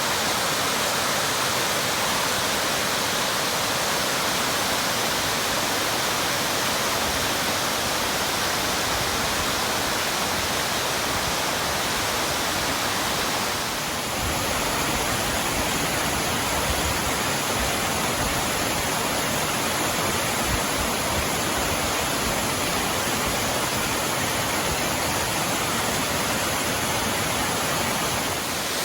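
Steady rush of a large waterfall pouring close by, with a brief dip and a slight change in tone about halfway through.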